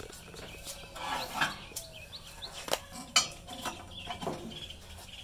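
Metal lid lifter hooking and raising a charcoal-topped cast-iron Dutch oven lid: a few sharp metal clinks, the loudest about three seconds in. Birds chirp faintly in the background.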